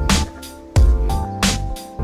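Background music with a steady beat: evenly spaced drum hits under held notes.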